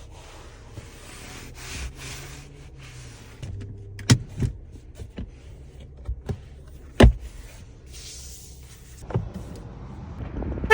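2023 Kia Soul EX's power windows running: a steady electric motor hum with a whirring hiss, then several sharp clunks, the loudest about seven seconds in.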